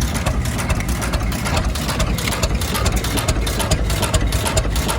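Antique farm tractor engine running steadily at low speed, a continuous low, rapid chugging.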